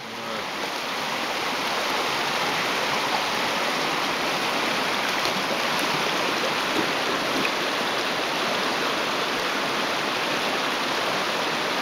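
Shallow stream running steadily over rocks, a constant rushing of water.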